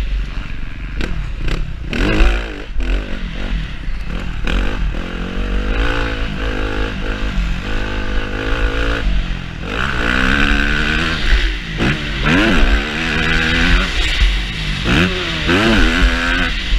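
Yamaha YZ-F four-stroke motocross bike engine at full riding speed, its pitch rising and falling again and again as the throttle opens and closes. Sharp knocks and clatter come from the bike in the first few seconds.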